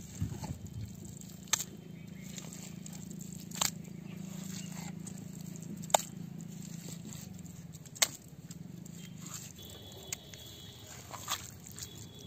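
Wet mud being scooped and packed by hand and with a small spade around a metal basin buried in the ground, with a sharp click or knock every two seconds or so over a steady low hum.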